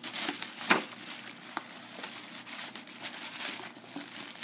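Paper gift bag and tissue paper crinkling and rustling in irregular crackles as a small dog roots inside it with its head and pulls at the gift.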